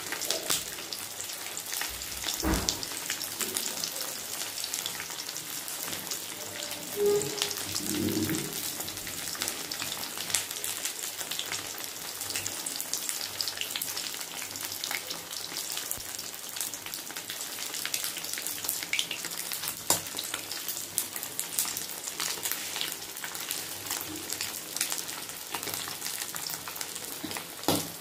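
A large semolina-coated fish fillet frying in hot oil in a kadai: a steady crackling sizzle with many small pops of spattering oil, the fish being browned until crisp.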